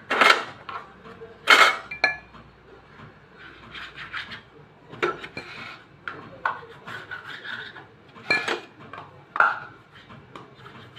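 Kitchen utensil sounds: a handful of sharp knocks and clinks, some ringing briefly like metal. Between them a knife scrapes and cuts through layered samosa dough on a wooden board.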